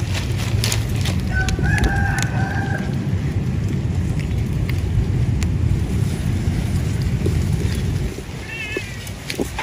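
Cats eating dry kibble off paper, with scattered short clicks of crunching and rustling over a steady low rumble. A rooster crows for about a second and a half, starting about a second and a half in, and a short wavering bird call comes near the end.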